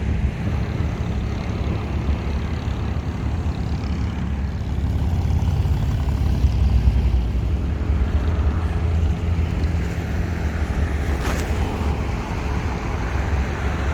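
Steady low engine rumble, with one sharp click about eleven seconds in.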